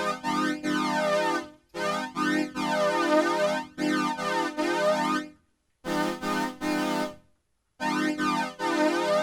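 OPUS Soviet analog polyphonic string synthesizer playing sustained chords in short phrases, with a slow sweeping effect moving through the tone and brief silences between phrases.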